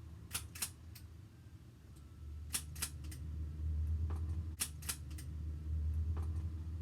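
Sharp clicks in three quick groups of about three, with a last faint pair, over a low steady hum that comes in about two seconds in.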